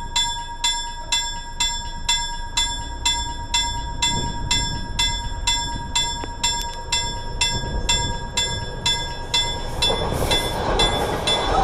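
Railroad crossing warning bell ringing in an even rhythm, about two and a half strikes a second, as a train approaches; the train's rumble and rail noise build and grow loud near the end.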